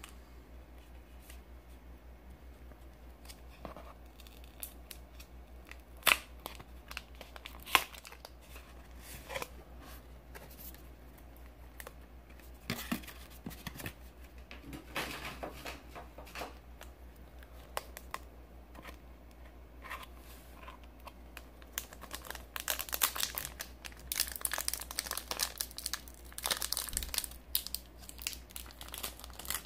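Foil Pokémon booster pack being handled and torn open by hand. Scattered crinkles and a few sharp clicks at first, then dense crinkling and tearing from about twenty-two seconds in.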